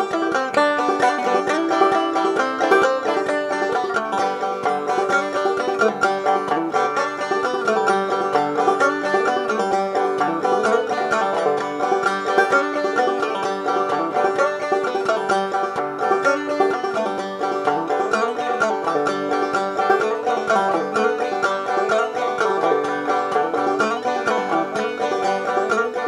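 Banjo music: a steady, plucked banjo tune.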